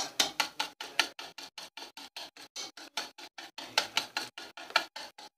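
A utensil beating cake batter by hand in a bowl, clicking against the bowl in a fast, even rhythm of about six strokes a second: oil being beaten into whipped eggs and sugar until creamy.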